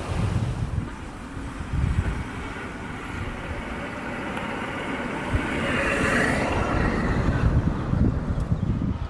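Wind buffeting the microphone in gusty low rumbles, with a rushing hiss that swells about halfway through and fades near the end.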